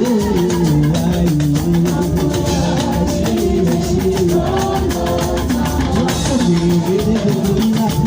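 Live band music: a drum kit keeping a steady beat under guitar and a melodic line that steps up and down in pitch.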